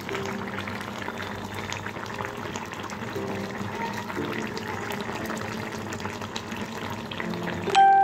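Vetki and brinjal curry bubbling steadily as it simmers in a pan. Near the end a sudden ringing strike, the loudest sound, dies away over about a second.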